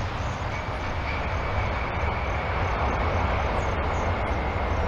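Jet engines of a Boeing 747 airliner making a steady, deep rumbling noise as it rolls out along the runway after touchdown, with a faint steady high whine over it.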